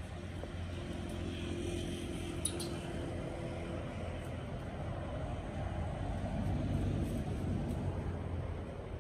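Steady low rumble of a motor vehicle engine, growing louder about six to eight seconds in. A single sharp click comes about two and a half seconds in.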